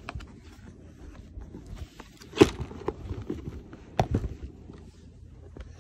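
Gift boxes and their cardboard and plastic packaging being handled and shifted about: scattered rustles and taps, with two louder knocks about two and a half and four seconds in.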